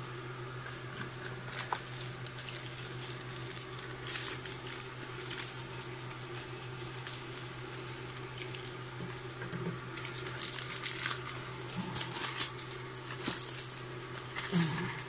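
Plastic courier pouch crinkling and rustling as it is handled, cut open with scissors and the box pulled out of it, in scattered crisp crackles and clicks. A steady low hum runs underneath.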